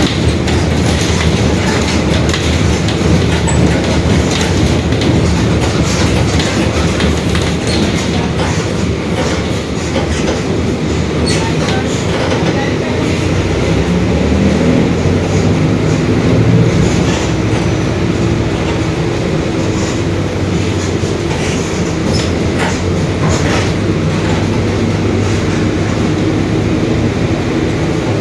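Mercedes-Benz OF-1721 Bluetec 5 bus and its four-cylinder diesel running under way, a steady low drivetrain rumble with scattered rattles. It includes the growl of the differential, which the owner singles out as the bus's noisy differential.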